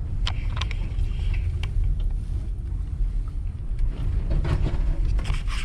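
Steady low rumble of a car driving, heard from inside the cabin, with a few light clicks.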